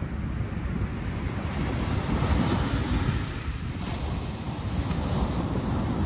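Small waves breaking and washing up a pebble beach, the surf hiss swelling twice, over a steady low rumble of wind on the microphone.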